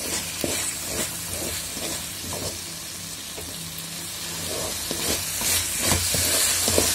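A wooden spatula stirs and scrapes a thick coconut-and-jaggery filling around a hot pan while the mixture sizzles steadily as it cooks down to thicken. The scraping and sizzling grow louder over the last couple of seconds.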